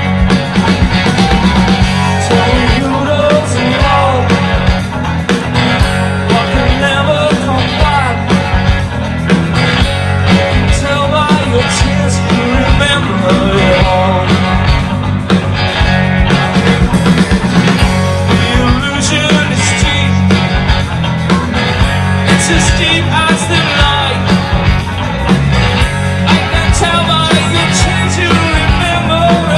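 Live rock band playing, with a male lead voice singing over electric guitars, bass and drums.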